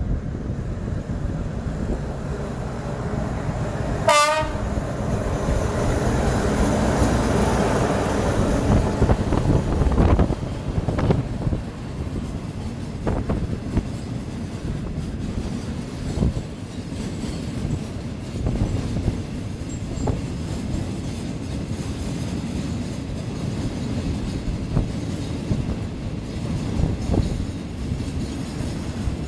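Diesel freight train passing close by: a brief horn blast about four seconds in, the locomotive's engine loudest as it goes by over the next few seconds, then a long string of tank wagons rolling past with wheels clicking over the rail joints.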